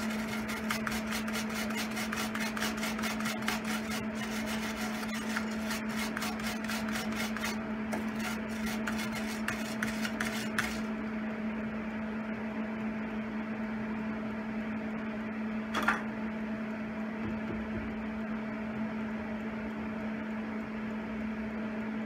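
MIG welder arc crackling on cast iron as a broken stove leg is welded, in short runs with brief pauses, then stopping about eleven seconds in. A steady low hum runs underneath, and a single sharp click comes about sixteen seconds in.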